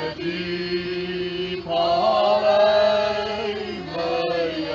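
A crowd of people singing a slow hymn together, the voices holding long notes that change pitch every second or two.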